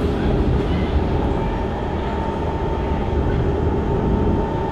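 Cabin of a C151 metro train running along the track: a steady rumble of wheels on rail and running gear, with a thin steady whine above it.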